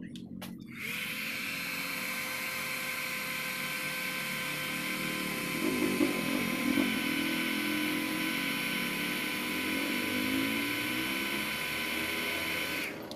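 Small handheld hair dryer running: a steady, high-pitched motor whine over rushing air. It switches on about a second in and cuts off just before the end.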